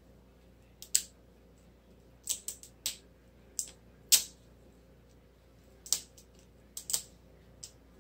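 L.O.L. Surprise toy's plastic packaging being worked open by hand: scattered sharp crackles and snaps, about a dozen spread unevenly over several seconds.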